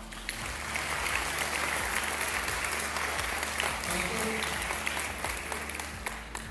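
Audience applauding: dense, steady clapping that starts just after the beginning and fades near the end.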